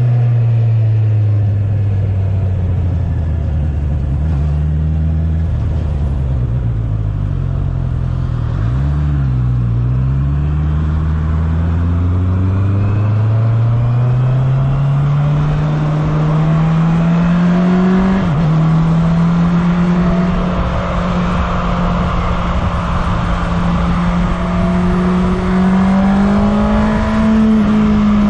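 2019 Honda CB650R's inline-four engine with stock exhaust, heard on board while riding. Revs fall over the first several seconds as the bike slows, then climb steadily under acceleration, with a brief dip at a gear change about eighteen seconds in. After that the engine holds fairly steady revs, with wind rush growing louder.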